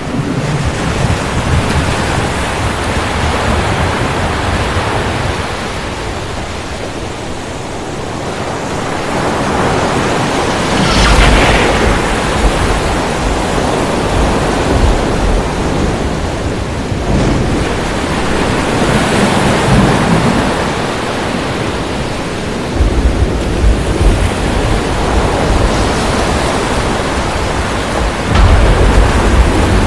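Thunderstorm: a steady rush of heavy rain with deep rumbles of thunder. The thunder swells about eleven seconds in and again over the last seven seconds.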